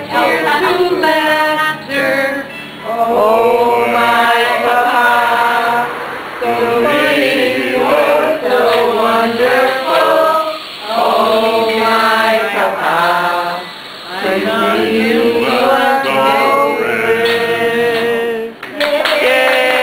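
A small group of people singing together unaccompanied, in long held phrases with short breaks between them.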